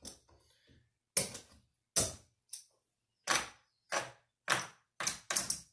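Casino chips clacking together as they are gathered off the felt and stacked: about ten sharp clicks, spaced irregularly at first and coming quicker near the end.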